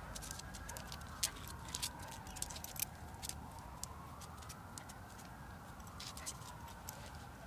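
A distant wailing siren, its pitch slowly rising and falling, with scattered sharp clicks and taps from the dogs scuffling on the paving stones.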